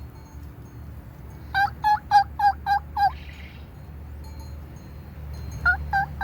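A man's imitation of a turkey gobble, a rapid warbling rattle of about six pulses lasting about a second and a half. It comes twice, about a second and a half in and again near the end, and no turkey answers it.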